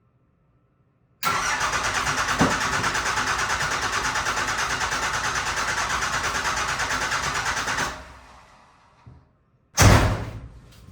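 A Cummins diesel engine being cranked on the starter for about six and a half seconds with an even rhythmic pulse, without catching. Its injector lines are cracked open to bleed air from a fuel system that has run dry. It stops abruptly, and a loud thump follows near the end.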